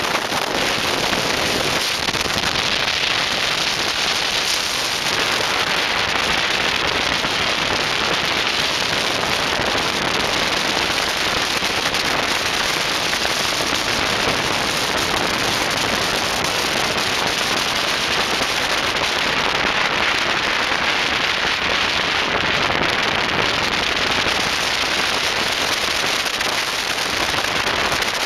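Car tyres spinning on the tarmac in a long smoky burnout, heard close to the wheel: a steady, dense rushing noise with crackling.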